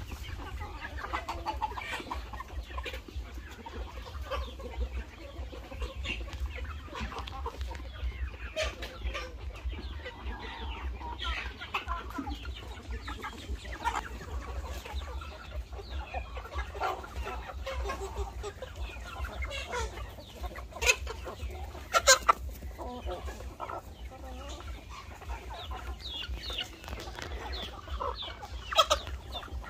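A flock of chickens clucking and calling as they feed, many short calls overlapping throughout. A few sharp clicks stand out about two-thirds of the way through and again near the end, over a low steady rumble.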